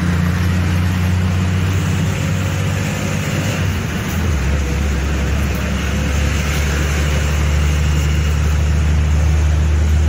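Motor vehicle running: a steady low engine hum with road noise over it, the hum shifting lower about four seconds in.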